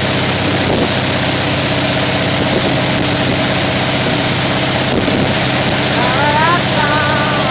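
Ski boat engine running steadily under way, with water rushing and spraying in the wake. A few rising, then held, tones come in near the end.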